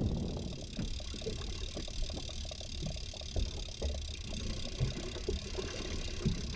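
Boat's outboard motor running at low trolling speed, a steady low rumble, with water hiss and scattered small knocks and clicks around the boat.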